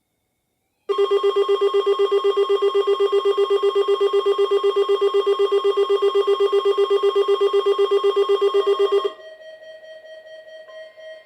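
Weather alert radio's alarm beeping loudly in rapid pulses, about five a second, as it sounds for the required weekly test; it cuts off about nine seconds in, leaving fainter steady tones.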